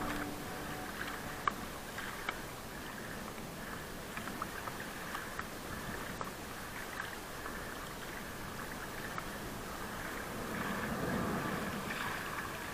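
Water hissing and splashing along the hull of a moving six-person outrigger canoe, with scattered small splash ticks. The sound swells a little near the end.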